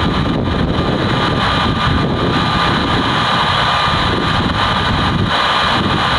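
Jet engines of a Boeing 747-8 freighter during its landing rollout: a loud, steady rumble with a thin steady whine over it.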